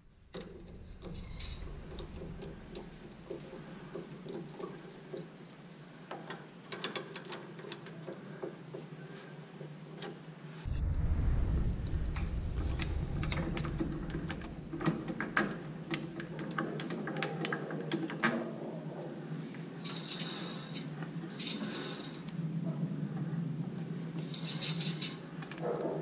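Metal clicks and clinks of parts and tools being handled at a small metal lathe while a back-up light switch is set into the three-jaw chuck. The handling gets louder and busier from about ten seconds in.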